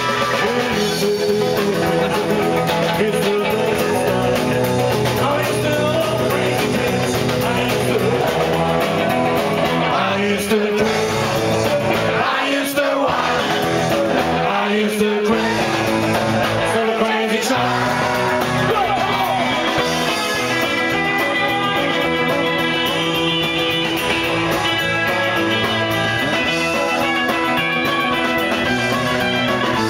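Live rock and roll band playing: electric guitar and singing, with a few short breaks in the bass near the middle.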